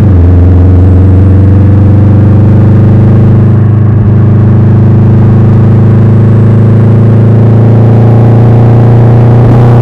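Subaru Impreza GB270's turbocharged flat-four engine running at steady revs through a custom 3-inch exhaust, giving a loud, even low drone that holds one pitch, with a brief change in the note near the end.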